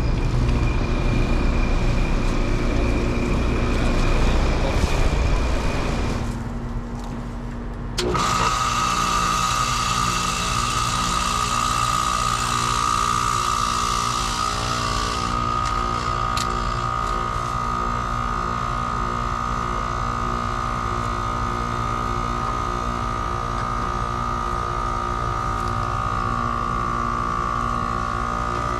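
Rheem Classic 14 SEER 2-ton heat pump outdoor unit going into defrost: a steady run drops away about six seconds in, then a sudden whoosh about two seconds later as the reversing valve shifts. After that the compressor runs on in defrost with a loud, steady high whine.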